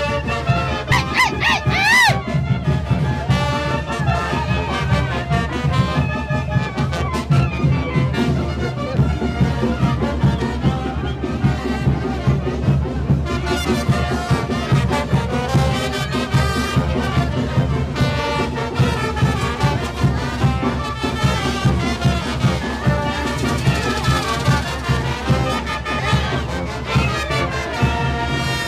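Mexican wind band playing a tune with a steady beat, led by clarinets and trumpets over a sousaphone bass line.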